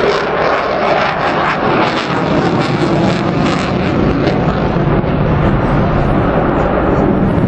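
The twin EJ200 jet engines of a Eurofighter Typhoon, loud and steady as the fighter flies its display overhead, deepening into a lower rumble about halfway through.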